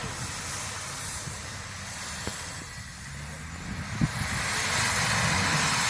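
A 4x4 SUV's engine working under load as it ploughs through deep snow, with its tyres churning and hissing in the snow; the noise swells about four and a half seconds in, just after a single short knock.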